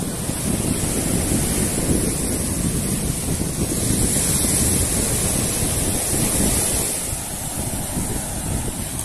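Small ocean waves breaking and washing up the sand at the water's edge, with wind buffeting the microphone as a steady low rumble.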